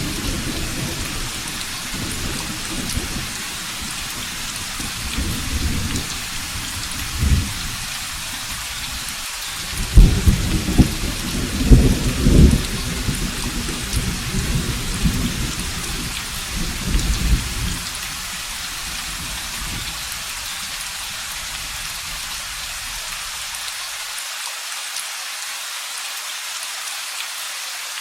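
Steady rain with rolling thunder. The loudest rumbles come about ten to thirteen seconds in, and the thunder dies away a few seconds later, leaving only the hiss of the rain.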